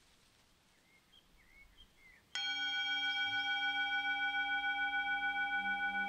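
Metal singing bowl struck once with a mallet about two seconds in, then ringing on with several steady overtones and a slow, regular pulsing waver in the tone.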